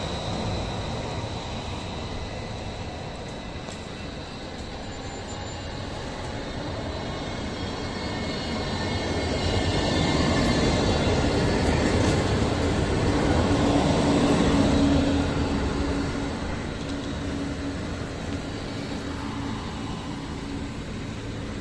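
A tram passing on street rails: a rumble with a steady hum and faint high whine builds, is loudest about ten to fifteen seconds in, then fades away.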